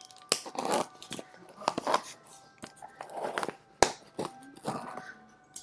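Packaging being torn and crinkled open by hand, with irregular crunching and rustling and a couple of sharp clicks.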